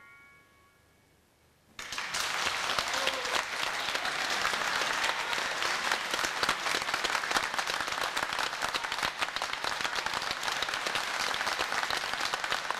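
After a brief near-silence, audience applause starts suddenly about two seconds in and carries on steadily.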